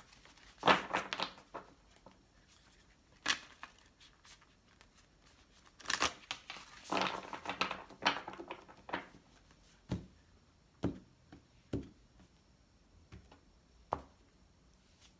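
A deck of oracle cards being hand-shuffled: papery flapping and riffling in irregular bursts, then a few single sharp taps in the second half.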